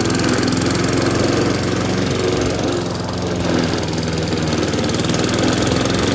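Gasoline lawn mower engine running steadily under mowing, with a slight dip in level about halfway through.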